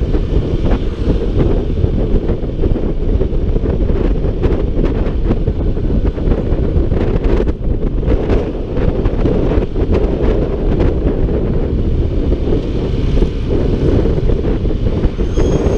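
Loud, steady wind rush on the microphone of a moving Honda ADV 150 scooter, with the scooter's running and road noise underneath.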